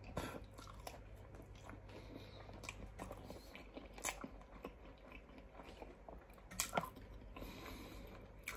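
Faint, close-up chewing of raw fish: soft wet mouth sounds with scattered small clicks and smacks, the strongest a little under seven seconds in.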